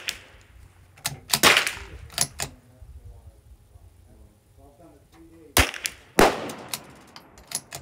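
.22 LR bolt-action rifle (Keystone 722 Precision Trainer) firing, each report a sharp crack with a short decay. The two loudest come about a second and a half in and about six seconds in. Lighter sharp clicks fall between and after them.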